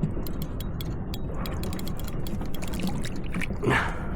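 Water splashing and dribbling around the kayak, with many small scattered clicks and a brief louder rush about three and a half seconds in.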